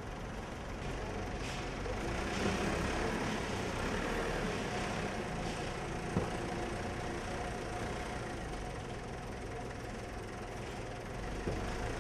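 A motor vehicle engine running steadily amid street noise, with a single sharp knock about six seconds in.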